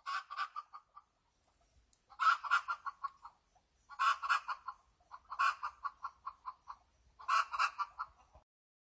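An animal calling outdoors in about five short bursts of rapid rattling notes, each burst lasting about a second with short gaps between.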